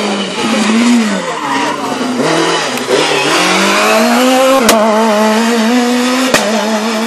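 Peugeot 206 rally car's engine passing close by at speed. The revs drop over the first couple of seconds, then climb hard and hold high as the car pulls away. Two sharp cracks come about two-thirds of the way in and near the end.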